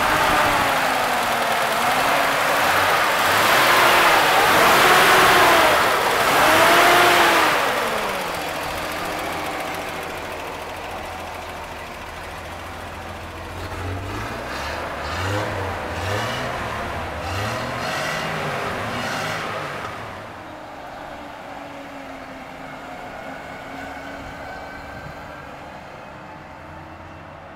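Toyota 2F 4.2-litre inline-six engine of a 1979 Toyota FJ45 revved several times, rising and falling in pitch. The truck then pulls away, its engine note rising and falling as it accelerates, and the sound fades as it drives off.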